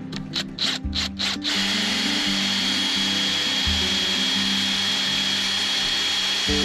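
Cordless drill with a plug cutter boring into a teak offcut to cut plugs: a few short bursts on the trigger, then running steadily with a high whine from about a second and a half in.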